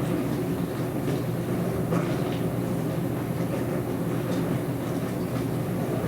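Dishwasher running: a steady low hum with faint, irregular spattering ticks above it.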